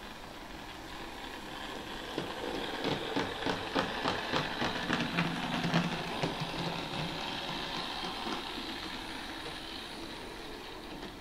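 Trix H0 model of the DB class 724 Indusi test railcar running slowly with its sound module off. Its motor and metal body make a rolling, humming rumble on track without sound damping, with rapid clicking from the wheels, about three to four clicks a second. The noise swells and is loudest a few seconds in, then slowly fades as the railcar moves away.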